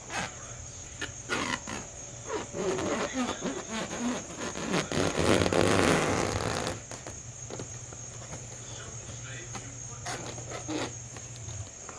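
Plastic cling wrap being pulled and spread over a bowl of dough, a loud rustling crinkle lasting about two seconds in the middle. Behind it, crickets trill steadily and there is a low hum.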